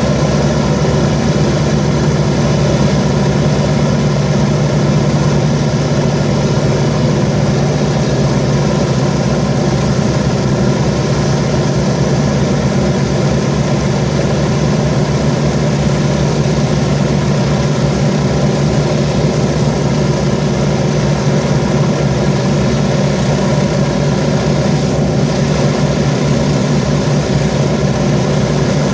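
Avro Shackleton MR3's Rolls-Royce Griffon V12 piston engines running steadily on the ground during an engine ground run, a loud, even drone with steady engine tones and no change in power.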